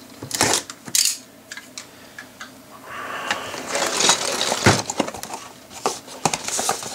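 A utility knife slits the tape seal on a cardboard LEGO box in a couple of quick strokes. Then the cardboard box is rustled and turned over, with a knock about two-thirds of the way through.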